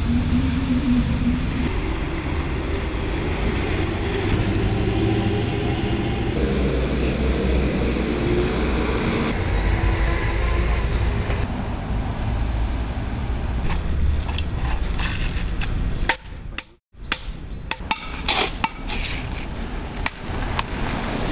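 Road-works street sound: a steady low rumble of vehicle engines and traffic for most of it. It cuts out briefly about three-quarters of the way through and gives way to a run of sharp knocks and clicks from work on concrete kerbstones.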